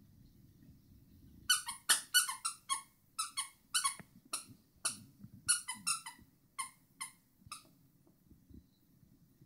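A dog chewing a plush squeaky toy, making a run of short, sharp, high-pitched squeaks at about three a second. The squeaks start about a second and a half in and stop a couple of seconds before the end.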